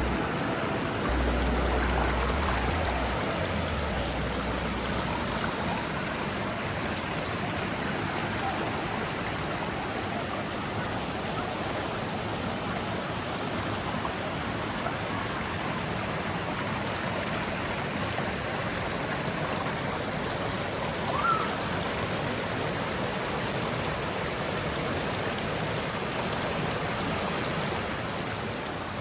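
Steady rush of water from the Danska fall waterfall and its stream. About two-thirds of the way through there is one short rising chirp.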